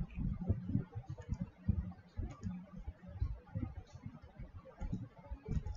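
Computer keyboard and mouse clicking: irregular short taps and thuds, several a second.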